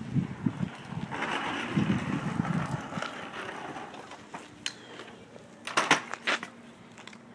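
Small wheels of a Y-flicker scooter rolling downhill, with low knocks and hiss in the first three seconds and two sharp clacks about six seconds in.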